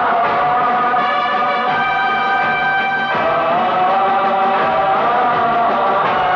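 A patriotic song: singing with long held notes over music, steady and loud.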